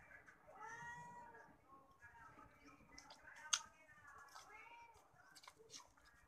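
A cat meowing, faint, several drawn-out meows that rise and fall in pitch. A single sharp click about halfway through.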